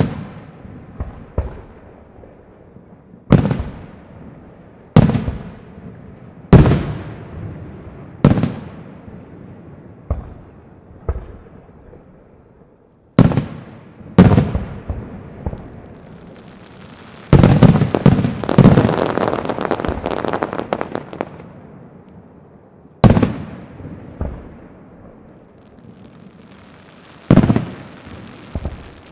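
Aerial firework shells bursting one after another, each a sharp bang with an echo dying away after it. About 17 seconds in, a rapid volley of overlapping bangs and crackling lasts some four seconds.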